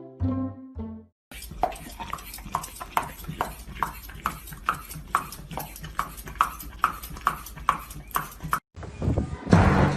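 Rhythmic hollow clopping, about three knocks a second for several seconds, between a few closing music notes at the start and music coming back near the end.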